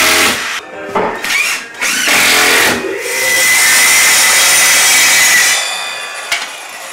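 A cordless drill-driver drives screws into plasterboard in short bursts, each with a rising whine as the motor spins up. About three seconds in, a plunge circular saw on a guide rail cuts a board with a steady whine for about two and a half seconds, then winds down.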